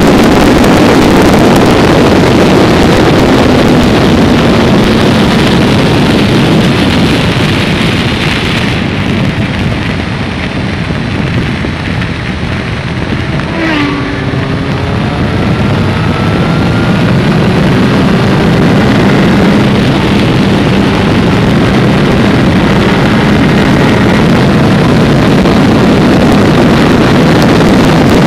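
Motorcycle riding at speed, heavy wind rush on the microphone over the engine and tyre noise. It eases off for a few seconds around the middle, then builds back up with a climbing engine note.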